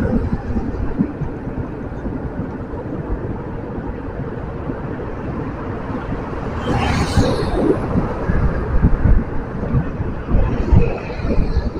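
Street traffic heard from a moving bicycle, with gusty wind buffeting the microphone. A vehicle passes close by about seven seconds in, and another, fainter, near the end.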